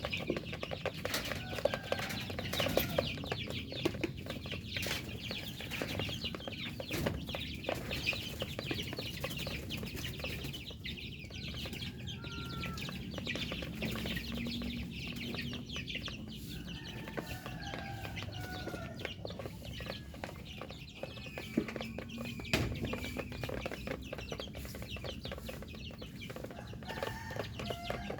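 Chickens clucking, with many short calls over one another and frequent small clicks and taps among them.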